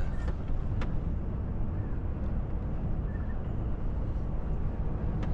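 Steady engine and road noise inside a Volvo FH truck cab cruising on a motorway at about 80 km/h.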